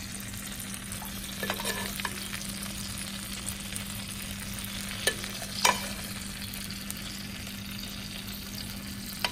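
Hot butter and meat juices sizzling in the roasting pan as a spoon bastes a bone-in ribeye, with a few light clinks of the spoon against the pan, the loudest about five and a half seconds in. A steady low hum runs underneath.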